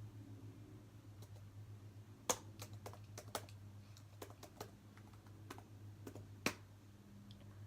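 About a dozen faint, irregular clicks of computer keys being pressed, in short runs starting about two seconds in, over a steady low hum.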